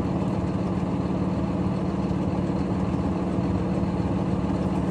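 An engine idling steadily: a constant low drone that holds one pitch throughout.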